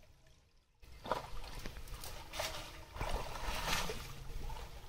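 Pond water splashing, sloshing and streaming off a wet fishing net as it is hauled up out of the water by hand, starting about a second in and going on in repeated surges.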